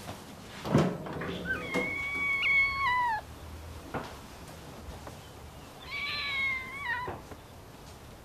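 A cat meowing twice: two long, drawn-out meows about four seconds apart, each dropping in pitch at the end. A single thump comes about a second in, just before the first meow.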